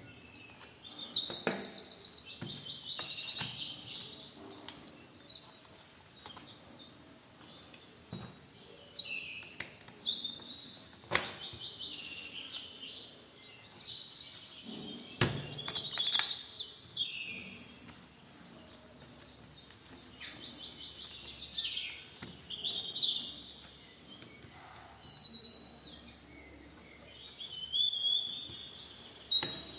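Small birds chirping and singing in repeated bouts of rapid high trills, with a few sharp clicks in between.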